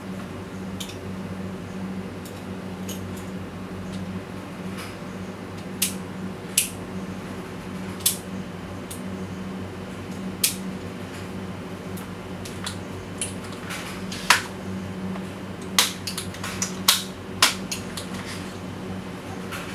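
Sharp metallic clicks and clacks, about a dozen scattered irregularly, from parts of a WE gas-blowback M4 airsoft rifle being worked by hand with the magazine out. A steady low hum runs underneath.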